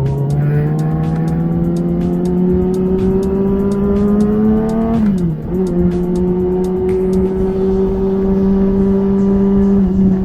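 Kawasaki ZX-6R's inline-four engine pulling with rising revs, a sharp drop in pitch at a gear change about five seconds in, then running at fairly steady revs.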